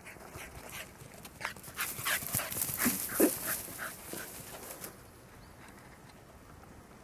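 Shiba Inu bounding through dry grass, a quick run of crackling rustles from about a second and a half in until nearly five seconds in. A couple of brief whines from the dog come near the middle, the loudest moment.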